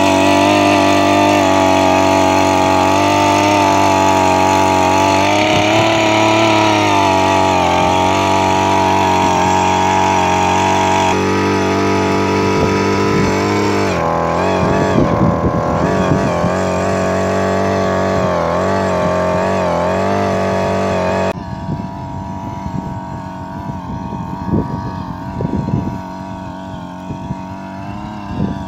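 Handheld earth auger's small engine running hard while boring a post hole, steady at first, then its pitch wavering up and down as the bit works into the ground. About two-thirds of the way through it drops suddenly to a quieter, more distant engine sound with scattered knocks.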